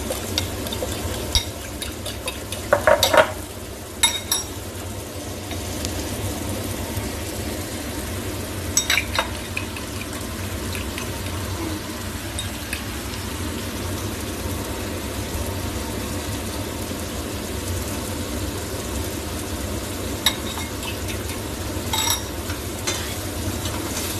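Tomatoes and onion sizzling steadily as they sauté in oil in a stainless frying pan, with a utensil clicking sharply a few times, loudest about three and four seconds in.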